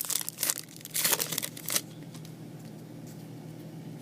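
Foil wrapper of a trading-card pack being torn open and crinkled, for a couple of seconds before it stops.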